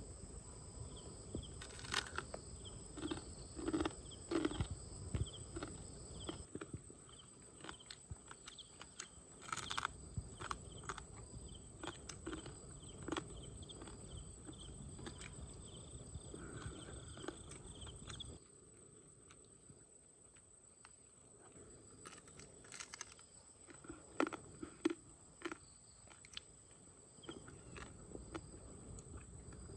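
Cooked crab being eaten by hand: irregular crunches and clicks of shell being bitten and chewed, in short bouts. Under it runs a steady high-pitched insect drone.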